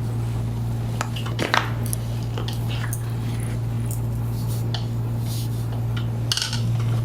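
Chiropractic spinal adjustment at the cervicothoracic junction: a few short, sharp joint pops, the loudest about one and a half seconds in, over a steady low hum.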